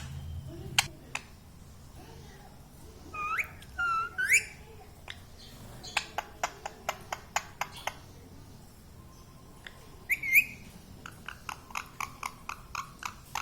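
Pet parrot making rising whistles and runs of sharp clicking chirps, about six a second, between them.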